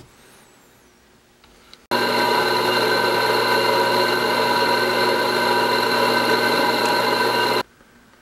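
Drill press running steadily as it drills a hole through a lithium pouch cell's aluminium tab: a loud, even motor hum and whine that starts abruptly about two seconds in and cuts off shortly before the end.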